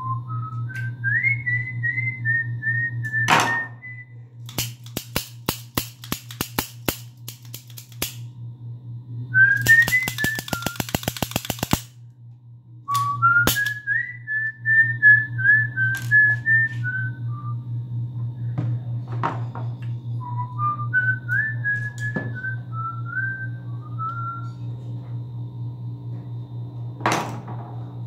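Someone whistling a wandering tune in short phrases over a steady low hum. A run of clicks comes in the middle, quickening for a couple of seconds. A sharp knock comes shortly after the start and another near the end.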